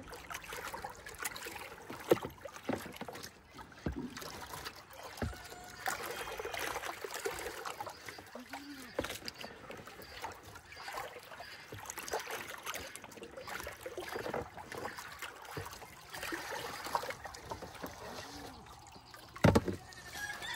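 A brush scrubbing the inside of a livestock water tub, an irregular scratchy scrubbing with a little water sloshing, broken by a sharp knock about two seconds in and a louder double knock near the end.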